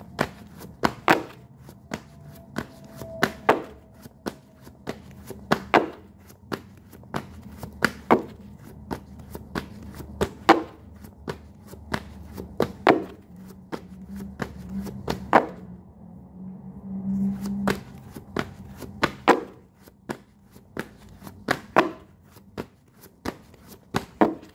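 A deck of tarot cards being shuffled by hand: quick papery taps and snaps several times a second, with a louder slap of the cards every couple of seconds.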